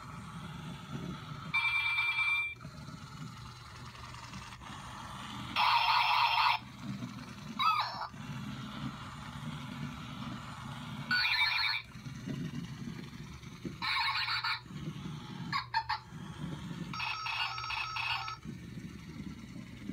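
Zhu Zhu Pets Siberian Husky toy puppy playing short electronic noises through its small speaker, about seven in all, some with a warbling pitch. A low rumble runs between them.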